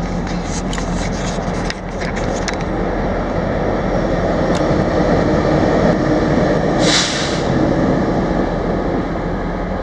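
Steady mechanical drone with a constant low hum that grows a little louder through the middle. A few sharp knocks come in the first couple of seconds, and a short hiss comes about seven seconds in.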